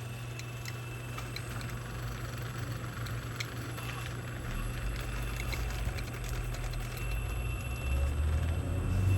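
Scale RC hydraulic excavator running: a steady low hum with scattered small clicks, and a deeper rumble building over the last few seconds.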